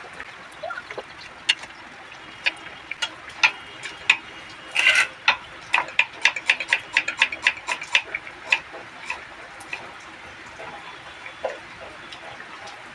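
A knife chopping onions on a cutting board: sharp, irregular knocks that speed into a quick run of chops about halfway through, over a steady background hiss.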